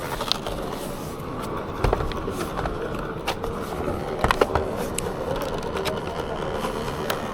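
Laptop cooling fan running with a steady rough drone, tractor-like, the sign of a failing fan; several sharp clicks sound over it.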